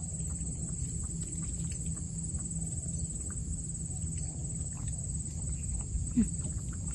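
Steady high-pitched insect drone over a low rumble of wind, with faint scattered ticks and one short, sharp call about six seconds in.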